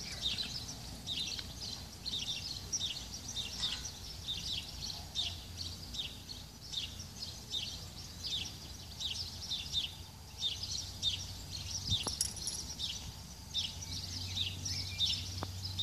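Small birds chirping continuously, short high chirps several times a second, over a low steady hum.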